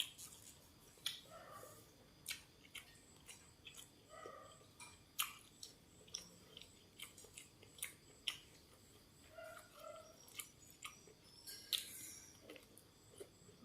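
A person eating close to the microphone: irregular crisp crunches and mouth clicks from biting and chewing food.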